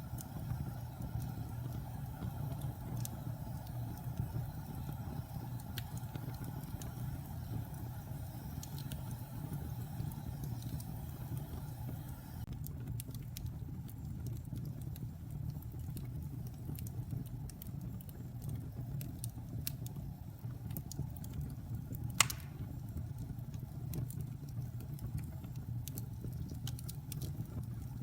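Fire burning with a steady low roar and scattered crackles that grow more frequent about halfway through, with one loud pop about three-quarters of the way in.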